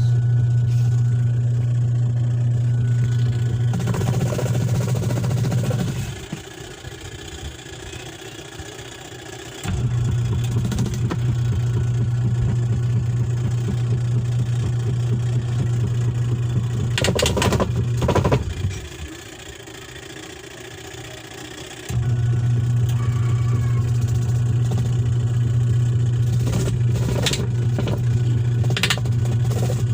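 Washing machine wash motor humming steadily as it drives the wash tub. It stops for a few seconds twice, then starts again: the timer pausing between forward and reverse turns, the sign that the wash cycle is reversing again. A few short clicks come near the middle and near the end.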